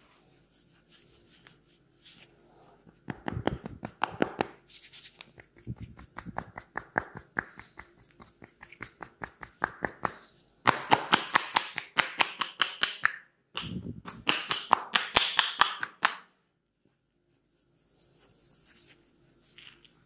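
Rapid rhythmic tapping massage on the shoulders with the palms pressed together in prayer position, the fingers clapping with each chop, about four or five claps a second. It comes in several runs with short breaks and stops a few seconds before the end.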